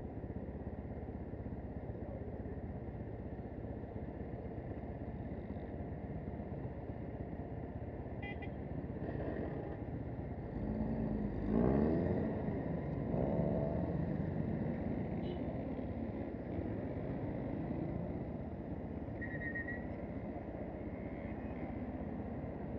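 Street traffic at an intersection, with a motorcycle engine idling close by. About halfway through, a nearby engine revs up and pulls away, its pitch rising and falling, and this is the loudest moment. There are a couple of brief high beeps before and after it.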